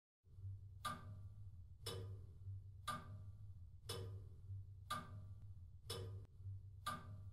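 A clock ticking at about one tick a second, seven ticks in all, over a low steady hum.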